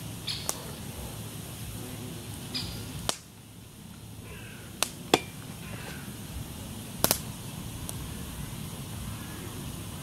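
Lakeside outdoor ambience: a steady low background noise with a few short bird chirps, and several sharp clicks scattered through, the loudest about seven seconds in.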